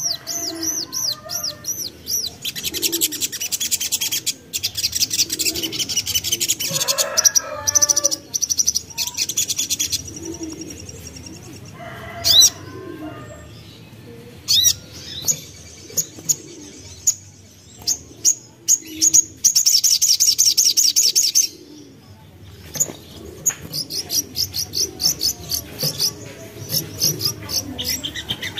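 Young sogok ontong (sogon) bird chattering in fast, dense high-pitched trills, with bursts of busy twittering and strings of rapid short ticking notes.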